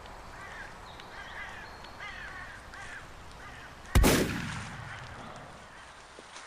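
Birds calling in a run of short, arching calls. About four seconds in, a single loud gunshot cracks out and echoes away over a second or two.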